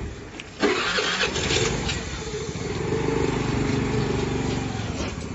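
A motorbike motor starting up with a sudden burst of noise, then running steadily with an even pulsing beat.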